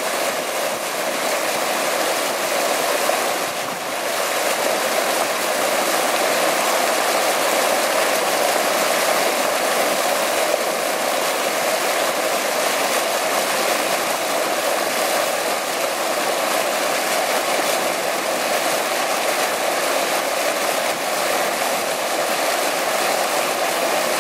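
Water pouring steadily over the rim of a dome-shaped fountain into a pool, a continuous rushing splash.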